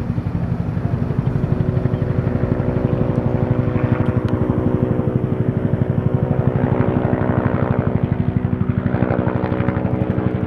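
Helicopter in flight, its rotor beating in a rapid, even pulse over a steady engine tone.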